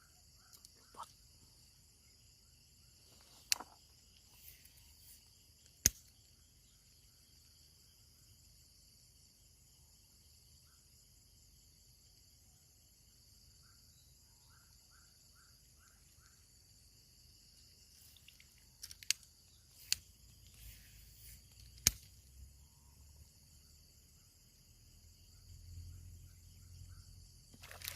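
Steady high-pitched drone of an insect chorus, crickets or cicadas, with a handful of sharp clicks scattered through and short runs of faint chirps.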